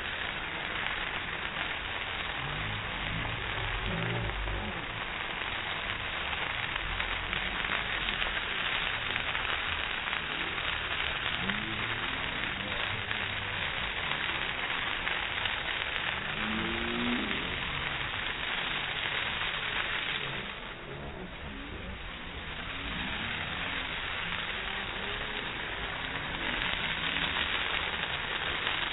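Large bonfire burning, a steady dense rushing crackle that dips for a couple of seconds past the middle, with faint voices underneath.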